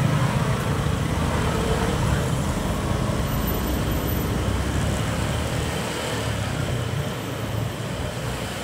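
A motorcycle engine running steadily at low speed amid surrounding road traffic, heard from the moving bike as a continuous low rumble.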